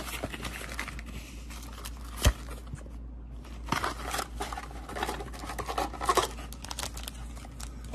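Sealed trading-card packs in crinkly plastic wrappers rustling and crackling as a stack of them is handled, with one thump on the table about two seconds in.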